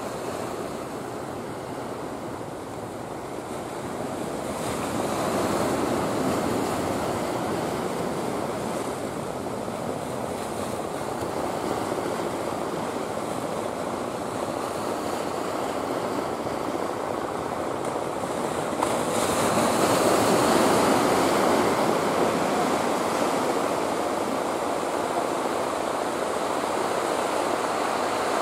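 Sea surf washing against a rocky breakwater, a steady rushing that swells louder a few seconds in and again about two-thirds of the way through, with some wind.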